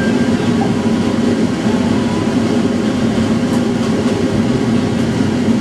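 Steady hum of a tram standing still, heard from the driver's cab.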